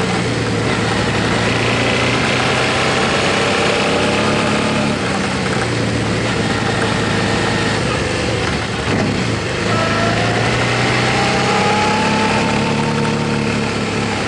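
Motorcycle engine running while riding, with steady wind noise over it; the engine note shifts up and down a few times and climbs about two-thirds of the way through.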